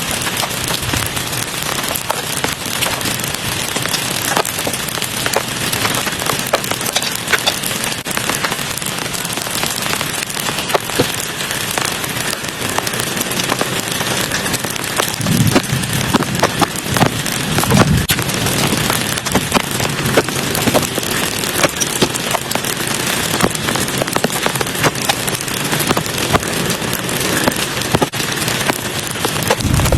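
Heavy rain falling steadily, dense patter of drops striking a surface, with a few low thuds about halfway through.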